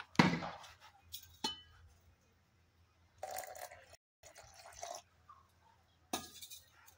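Water poured from a steel bowl into a blender jar of blended mango pulp, in two splashing pours around the middle, with sharp clinks and knocks of kitchen vessels being handled before and after.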